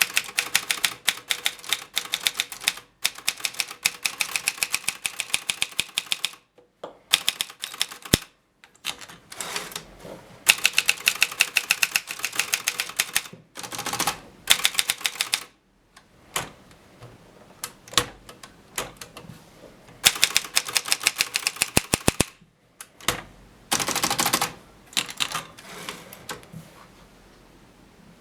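Kolibri portable manual typewriter being typed on: quick runs of sharp key strikes lasting several seconds each, broken by short pauses.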